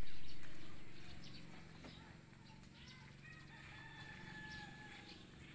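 A rooster crowing once, a long held call starting about three seconds in, over a steady low rumble that is loudest at the start and fades over the first two seconds.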